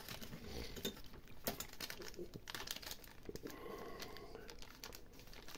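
Clear polyethylene zip-lock bags of small frame parts crinkling faintly as they are handled, with a few soft clicks in between.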